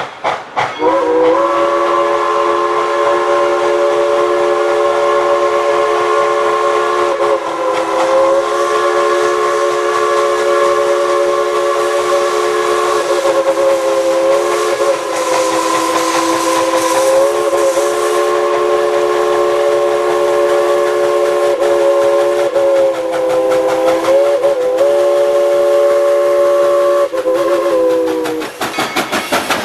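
Steam locomotive chime whistle blowing one long, continuous blast of several notes sounding together, wavering slightly a few times before it cuts off near the end. The clatter of the moving train sounds faintly underneath.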